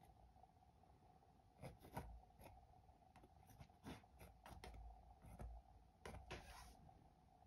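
Faint scrapes and dabs of a metal palette knife spreading thick paint on a stretched canvas: a string of short, irregularly spaced strokes, over a faint steady hum.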